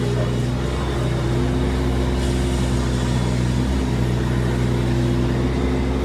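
Mini excavator's diesel engine running steadily under hydraulic load as the boom swings and the bucket lifts and curls, heard from the operator's seat.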